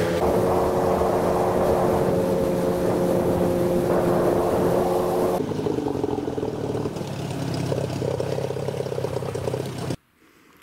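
Outboard motor with a water-jet unit running steadily, driving an inflatable boat along the river. About halfway through, the note drops abruptly to a lower, duller pitch as the boat comes in to moor. Near the end the sound cuts off suddenly.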